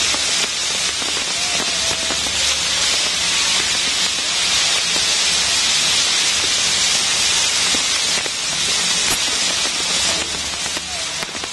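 Maltese ground fireworks set piece: many spinning firework wheels and fountains spraying sparks at once, making a loud, steady, dense hiss.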